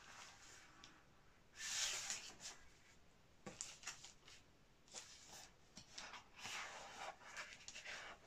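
Large paper print sheets being lifted and slid across a stack: soft rustles and swishes of paper, the loudest about two seconds in and another near the end, with a few light taps between.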